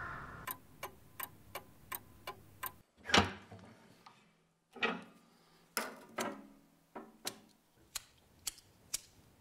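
Clock ticking, about three ticks a second. There is one loud knock about three seconds in, and a few heavier knocks from a cast-iron wood stove being handled in the second half.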